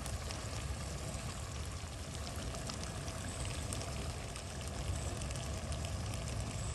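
Chicken curry simmering in a clay pot on a gas stove: a steady bubbling, sizzling hiss over a low, even rumble.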